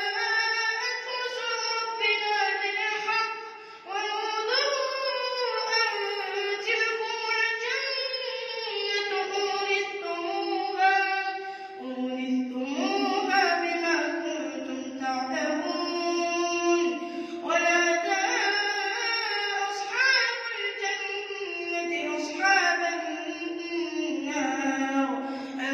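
A boy reciting the Quran in melodic tajweed style: one high child's voice drawing out long, ornamented phrases, with a short pause for breath about three and a half seconds in.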